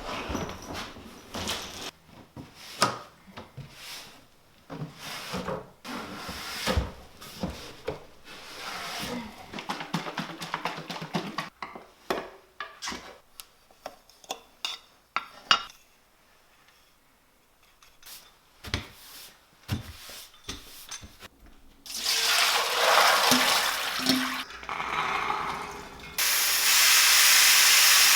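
Kitchen clatter: scattered clinks and knocks of dishes and utensils, then water running loudly from a tap in two spells near the end.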